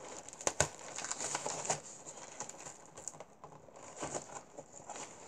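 Cardboard box being opened by hand: flaps pulled apart and packing tape peeled back, a run of rustles and scrapes with a few sharp clicks in the first two seconds.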